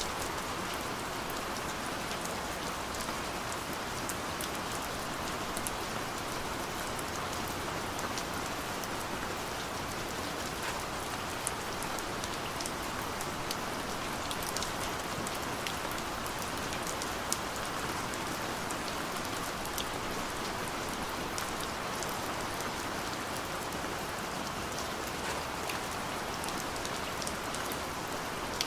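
Steady rain falling on a surface: an even hiss dotted with many small sharp drop ticks, with no thunder.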